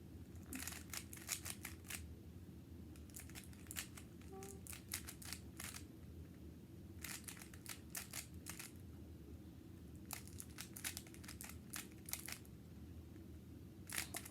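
Rubik's Cube being turned quickly by hand: bursts of rapid plastic clicks as the layers rotate, broken by short pauses of a second or so.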